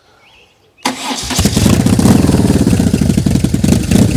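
BMW R1200C's boxer twin cranked by its starter about a second in, catching almost at once and then running with a steady loud pulsing beat.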